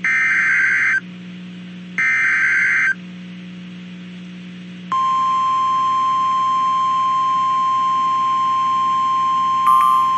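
Start of a NOAA Weather Radio alert: two one-second bursts of the SAME digital header, the warbling data tones of the Emergency Alert System, then about five seconds in the steady 1050 Hz weather radio warning alarm tone, held on, over a faint receiver hum. A short blip sounds near the end.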